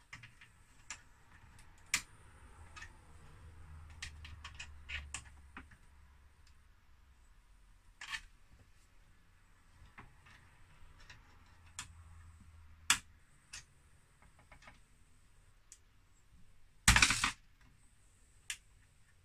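Small scattered clicks and taps of a screwdriver and fingers prising IC chips out of their sockets on a 1980s computer circuit board, with one louder, longer noise near the end.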